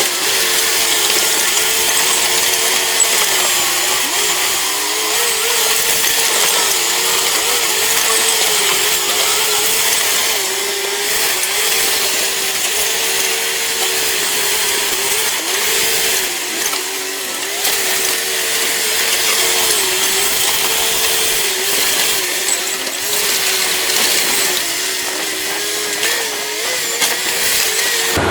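Heavy machinery running under load: a steady mechanical whine that wavers slightly in pitch, over a loud hiss.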